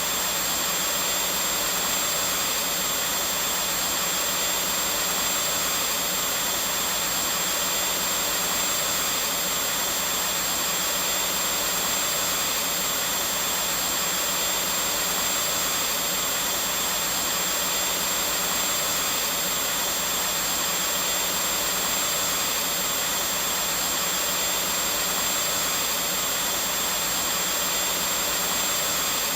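Vacuum cleaner running continuously at a steady pitch and level: a dense airy rush with a low motor hum and a thin high whine.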